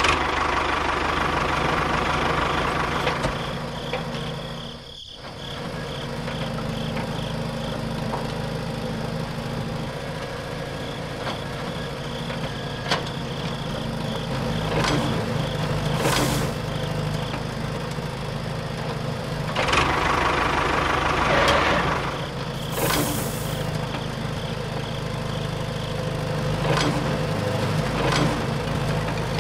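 Heavy-machinery engine idling steadily, with a short dropout about five seconds in and a couple of brief high hisses later on.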